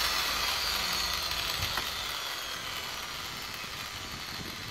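Angle grinder spinning down after being switched off: a fading whine that falls slowly in pitch. A single light click about two seconds in.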